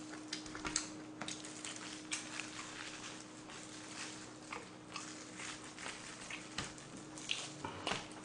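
Gloved hands tearing braised pig's trotter (jokbal) apart and chewing it: scattered small wet clicks, crackles and plastic-glove rustles, with a faint steady hum underneath.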